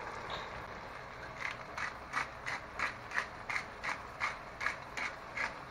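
Pepper mill being twisted to grind pepper, its mechanism clicking about three times a second, a dozen clicks in a row starting about a second in.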